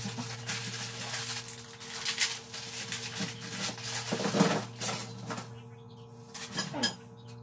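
Plastic wrapping and foam packing pieces rustling and crinkling as they are handled, busiest for the first five seconds, with a few light clicks near the end. A low steady hum runs underneath.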